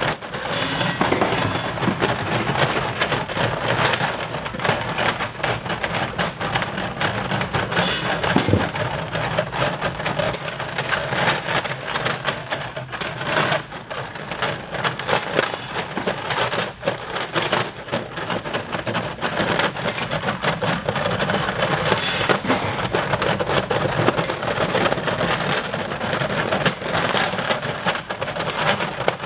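Small stamped steel parts clattering on an inclined magnetic conveyor's stainless slider bed as they are carried up, a continual dense rattle of metallic clicks over the steady running of the conveyor.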